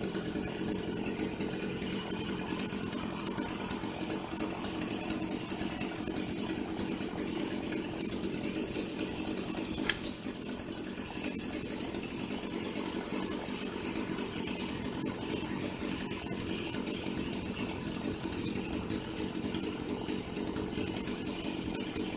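Chainsaw running steadily, with a short sharp knock about ten seconds in.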